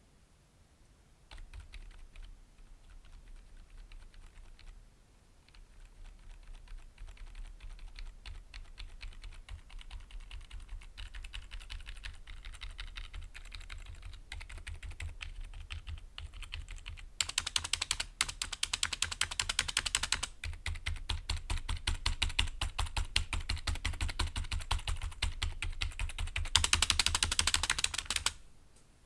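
Typing on a NuPhy mechanical keyboard with silent switches: a soft, rapid patter of keystrokes. It starts about a second in and grows busier, with two louder, faster bursts of typing, one in the middle and one near the end.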